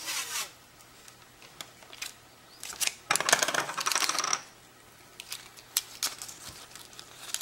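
Kapton tape pulled off its roll: a short rasp at the start, then a longer ripping peel about three seconds in that lasts over a second, followed by light clicks of handling.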